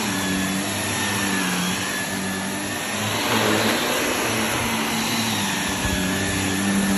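Shark NV380 upright vacuum cleaner running steadily as it is pushed back and forth over carpet: a continuous motor hum and high whine over the rush of suction.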